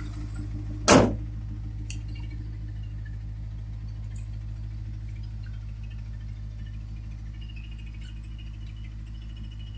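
Honda S2000 (AP1) F20C four-cylinder engine idling steadily with a light ticking, the tick/rattle the owner is recording. A single sharp knock sounds about a second in.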